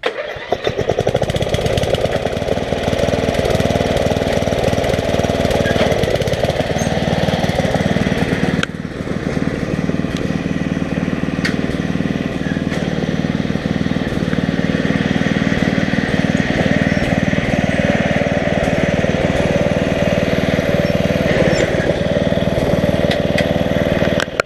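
Riding lawn mower engine running steadily close by, starting abruptly and dipping briefly about a third of the way through.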